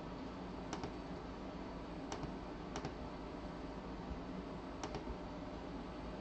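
Computer mouse clicks: about five short, sharp clicks, two close together near the start, then single clicks a second or two apart, over a faint steady hum.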